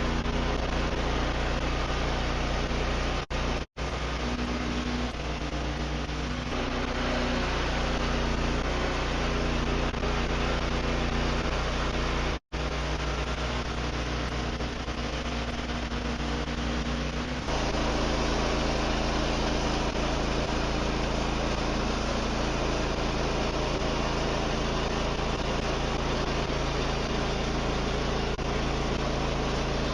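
Wood-Mizer portable band sawmill running steadily, its engine pitch and level stepping up about two-thirds of the way through.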